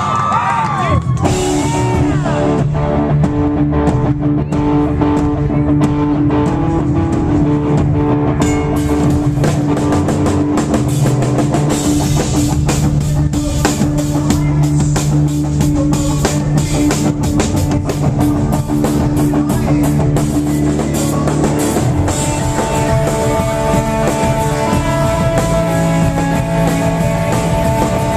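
Live rock band playing at a soundcheck: drum kit, distorted electric guitars and bass, with the chords shifting about 21 seconds in.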